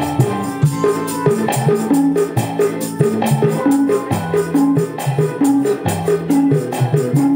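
A small band playing live: electronic keyboard, electric guitar and a hand-played drum over a steady, quick beat, with a tambourine jingling along.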